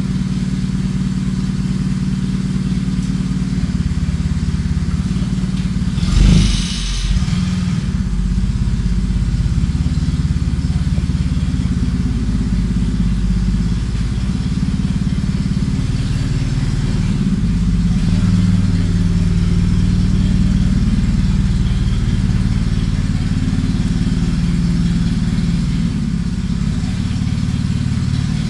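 Yale 4000 lb forklift engine running, its pitch and level shifting a few times as the throttle changes. A short, loud rush of noise about six seconds in.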